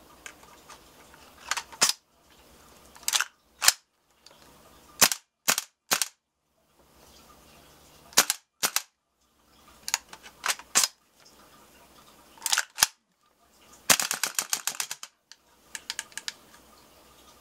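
WE PMC AK gas blowback airsoft rifle firing, each shot a sharp pop with the bolt cycling. Single shots and pairs come first, then a rapid full-auto burst of about ten shots near the end, followed by a few weaker pops as the gas runs low.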